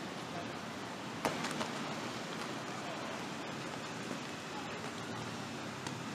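Steady outdoor city background noise, an even hiss, with one short sharp click about a second in.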